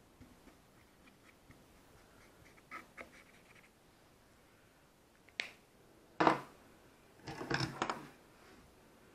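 Faint ticks and taps, then a sharp click, a loud knock about six seconds in, and a short cluster of knocks and rattles just after: small objects handled and set down on a wooden table.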